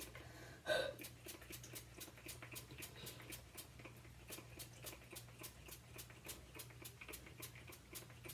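Fingertips rubbing wet face paint off the skin in quick, faint, regular strokes, about four a second, over a low steady hum.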